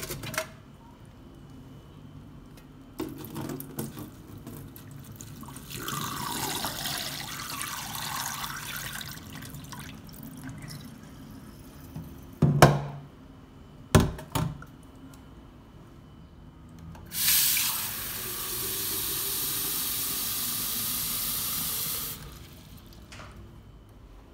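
Water running from a tap into a sink in two spells: the first shifts in pitch as it flows, then after a couple of sharp knocks comes a steady stream that stops suddenly when the tap is shut off.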